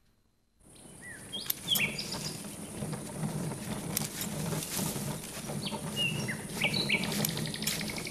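Garden birdsong: short chirps and tweets over a constant high insect hiss and a low steady hum, fading in about half a second in.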